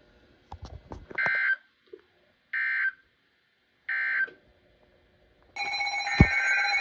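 Three short warbling digital data bursts of an Emergency Alert System end-of-message signal, about a second and a half apart, marking the end of the warning broadcast. About five and a half seconds in, a loud, steady electronic alert tone with several pitches starts abruptly.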